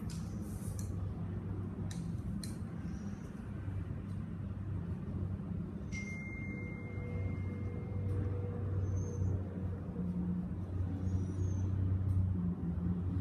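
Steady low background rumble and hum, with a few faint high chirps in the second half.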